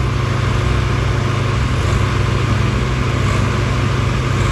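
Diesel tractor engines, among them a Swaraj 855 FE's three-cylinder diesel, running steadily and loudly under heavy load as the tractors drive through deep mud.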